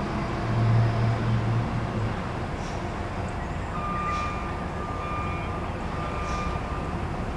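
Truck engine rumbling, heavier for the first two seconds and then easing off. From about halfway in, a reversing alarm beeps faintly in a steady on-off rhythm, about once a second, with faint clanks between the beeps.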